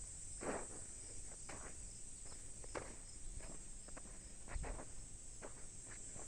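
Steady high-pitched insect chorus, with irregular footsteps about once or twice a second.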